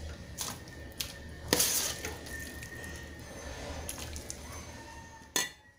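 Mashed squash (kalabasa) being dropped into a pot of hot cooking water, with wet plops and splashes; the loudest splash comes about one and a half seconds in.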